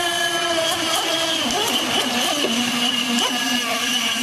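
Radio-controlled speedboat's motor running at speed, a steady high whine whose pitch dips and climbs back a few times as the throttle changes through turns, with a hiss of spray underneath.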